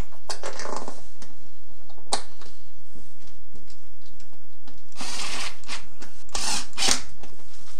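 Small Phillips screws being driven with a screwdriver to fasten a replacement infinite switch into a stove's control panel: scattered clicks of the tool on the metal, then two short grinding bursts near the end as the screws are run in.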